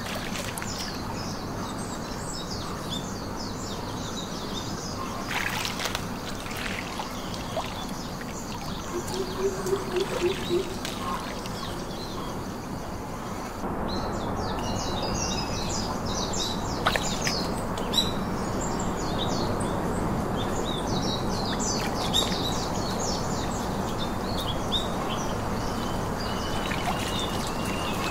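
Small birds chirping repeatedly over a steady outdoor background with water trickling. There is a brief low pulsed call about ten seconds in, and the background gets louder about halfway through.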